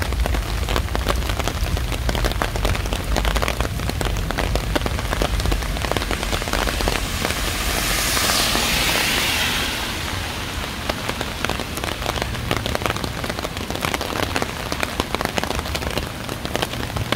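Steady rain falling, a dense patter of many small drops. About halfway through, a smoother hiss swells for a few seconds and then fades.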